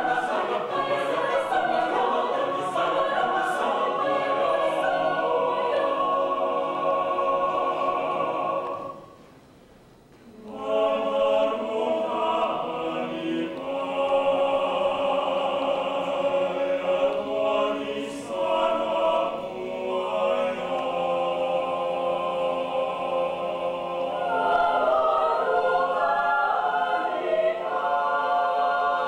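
Mixed choir of men's and women's voices singing a cappella in sustained harmony. The singing breaks off for about two seconds roughly nine seconds in, then resumes.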